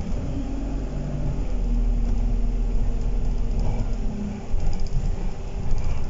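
Alexander Dennis Enviro200 bus's diesel engine and drivetrain heard from inside the passenger cabin: a steady low rumble with a droning engine note that shifts pitch in the first second and a half and fades about four and a half seconds in.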